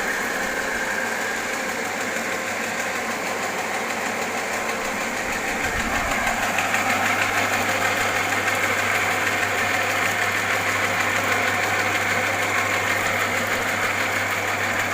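Two-cylinder soybean pulp separator machine running steadily on test. About six seconds in, a steady low hum joins and the sound gets slightly louder.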